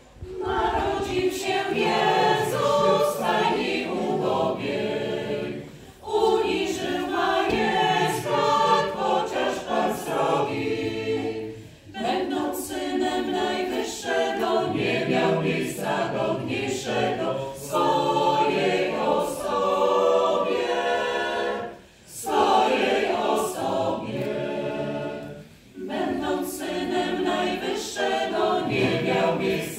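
Women's parish choir singing a Polish Christmas carol (kolęda) a cappella, in phrases broken by short pauses for breath.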